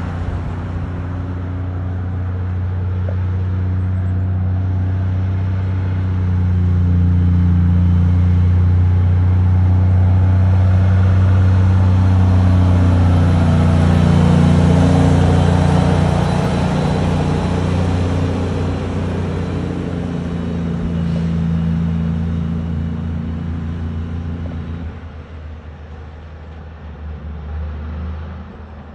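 Kenworth semi-trailer truck's diesel engine running with a deep, steady drone and tyre noise as it comes downhill, growing louder as it passes close by about halfway through, then fading as it moves away. About 25 seconds in the low engine note drops off abruptly.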